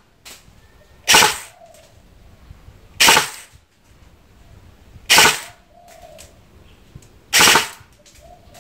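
Golden Eagle Type 96 electric BB machine gun (airsoft AEG) firing four short full-auto bursts about two seconds apart. The trigger is pulled briefly each time to try to get single shots from a gun that has no semi-auto mode.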